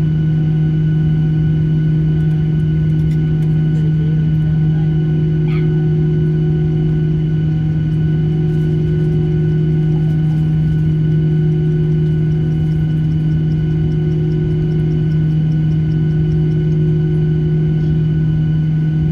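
Steady, loud mechanical drone with a strong constant low hum, heard from inside an airliner cabin while the wing is sprayed with de-icing fluid.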